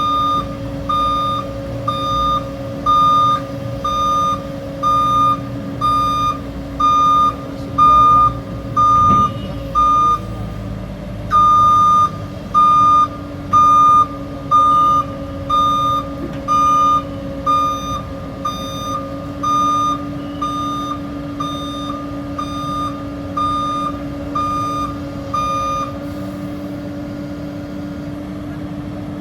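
Amphibious excavator's travel alarm beeping about twice a second over its steady-running diesel engine. The beeping stops near the end, and the engine runs on.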